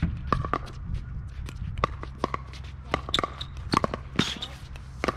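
Pickleball paddles hitting a hollow plastic ball in a fast doubles rally: a string of sharp pocks, several a second, some louder and some fainter.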